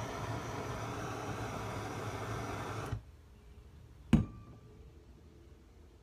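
Steady hiss of a gas torch flame heating a battery cable terminal to melt solder. It cuts off abruptly about halfway, and a single sharp click follows about a second later.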